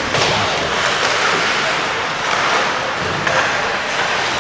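Ice hockey play: skates scraping and hissing on the ice, with a few sharp clacks of sticks and puck, over a murmur of voices in the rink.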